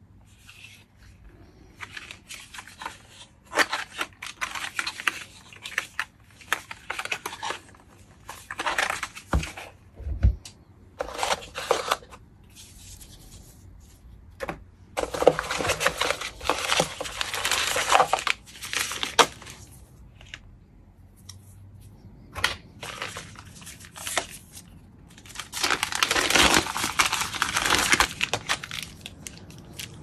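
Keyboard packaging being handled: wrapping and plastic bags crinkling and tearing in irregular bursts, loudest in two long stretches in the middle and near the end. There is one dull thump about ten seconds in.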